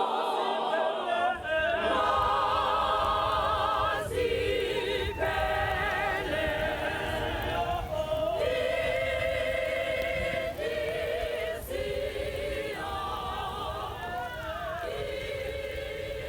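Choir singing sustained notes with vibrato in harmony, over a low backing that comes in about a second in.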